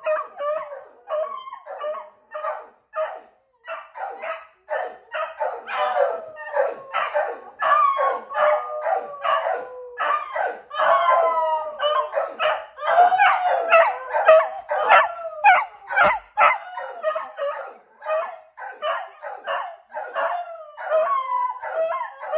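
Beagles and a larger tan hound baying and howling together, short overlapping bays several times a second mixed with drawn-out howls that slide up and down in pitch; this is the dogs calling out when one of the household has gone outside. A single sharp knock sounds about two-thirds of the way through.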